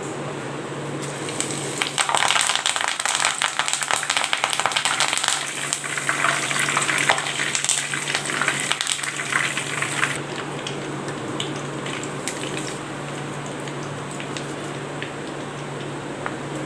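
Fresh curry leaves sizzling and crackling in hot frying oil inside a wire-mesh strainer. The spitting is loudest from about two seconds in until about ten seconds, then settles to a light sizzle.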